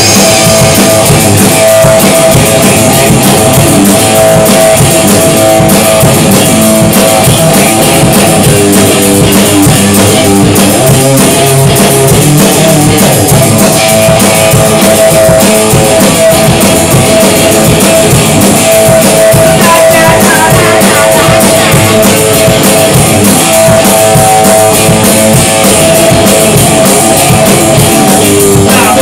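Loud rock band music, guitar and drum kit playing steadily.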